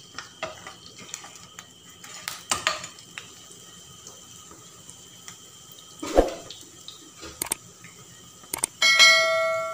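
Kitchen utensil clatter over medu vadas frying in oil: a slotted spatula clicking and tapping in a non-stick kadai, with a heavier knock about six seconds in. Near the end a metal utensil rings out with a clear tone that fades.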